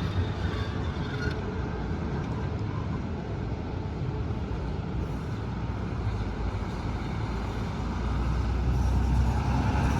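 Road traffic with trucks and buses running, and a deeper rumble building toward the end.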